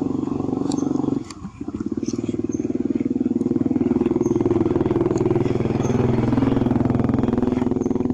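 A small engine running steadily nearby, a low pulsing drone that dips briefly about a second in.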